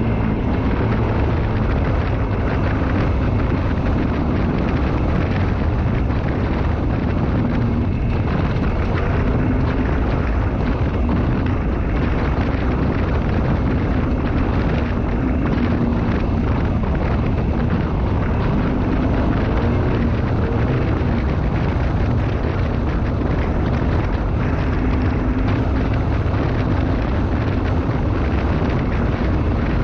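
Side-by-side UTV driving fast on a dirt road: a steady, loud rumble of wind and road noise over the engine's hum, which wavers slightly in pitch as the speed changes.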